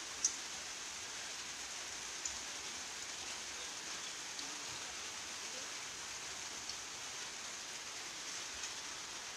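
Steady, even hiss, rain-like, with a few faint ticks scattered through it.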